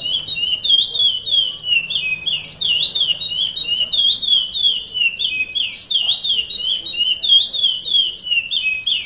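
Male curió (chestnut-bellied seed-finch) singing the Paracambi "rompe nuvem" song type: an unbroken run of quick, high whistled notes, each sliding down and back up, several a second.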